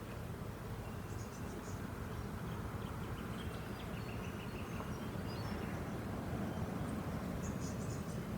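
Honeybees buzzing in a steady hum around an opened hive, growing slightly louder, with a few faint high ticks.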